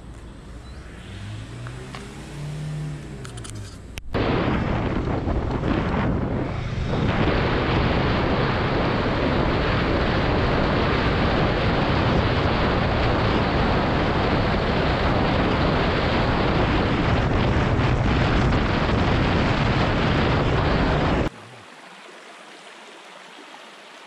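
Motorcycle ride: loud wind rushing over the camera's microphone, with the engine running underneath. It starts abruptly about four seconds in, grows a little louder soon after, and cuts off suddenly near the end, leaving the faint trickle of a shallow stream. Before the ride, a faint hum rises and falls in pitch.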